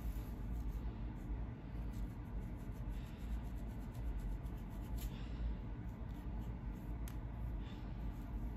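Fine-tooth comb scratching along the scalp to lift dandruff flakes: soft scraping strokes over a steady low rumble.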